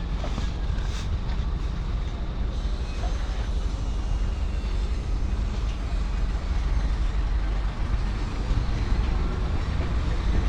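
Steady low rumble of truck engines running, getting a little louder in the last few seconds.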